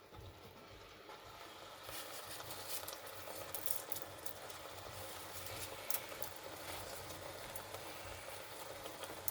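Ground spice paste sizzling in sesame oil in a pan: a steady frying hiss with scattered crackles and pops, a little louder from about two seconds in.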